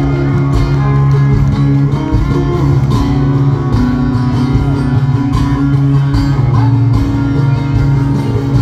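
Live country band playing a loud instrumental passage, with electric and acoustic guitars over bass and drums.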